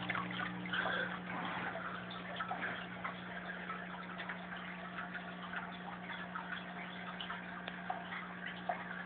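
Turtle tank's aquarium filter running: a steady low hum with water trickling and dripping into the tank in small scattered ticks.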